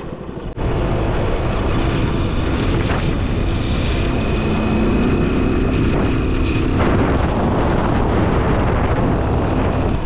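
Motorcycle ride: wind rushing over the on-board microphone over the running engine and tyre noise. A steady higher tone joins for nearly three seconds around the middle.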